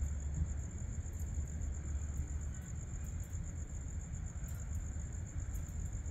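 Night-time outdoor ambience: a steady low rumble under a constant high-pitched insect chorus that pulses faintly.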